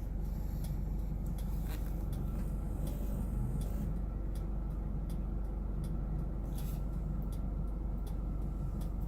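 Car engine idling steadily, a low even hum heard from inside the parked vehicle's cabin, with a few faint clicks.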